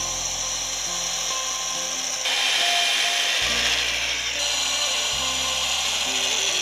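Corded electric drill running as it bores pilot holes into wooden boat planks for the nails that will join them. Its noise gets louder about two seconds in.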